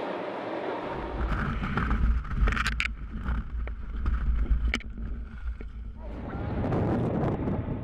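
Wind buffeting a helmet-mounted camera's microphone during a parachute descent under a round static-line canopy: a heavy, fluttering low rumble with scattered clicks and rustles from the harness and risers. It is preceded for about the first second by the steady rush of the transport aircraft's engines and slipstream at the open jump door.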